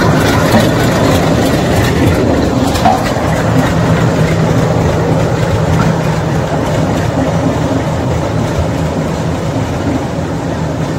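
Old-style road roller's engine running steadily, gradually getting quieter.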